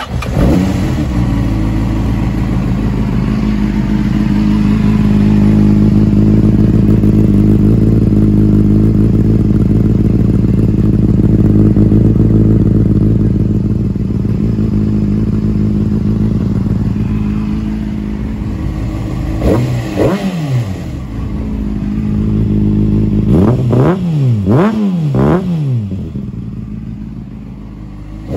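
2003 Honda CBR600RR inline-four running through a Scorpion exhaust, idling steadily, then revved: one throttle blip about twenty seconds in, and several quick blips a few seconds later before it settles back to idle.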